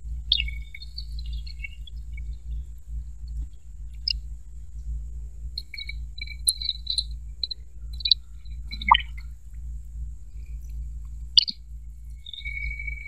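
A steady high insect drone with scattered short bird chirps, over a low steady rumble, and a couple of sharp clicks in the second half.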